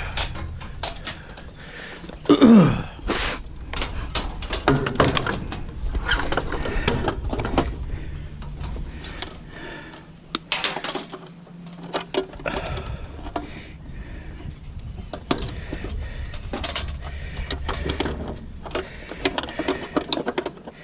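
Metal parts and hand tools clanking and clicking while an appliance is taken apart for scrap, with a short falling squeal about two and a half seconds in.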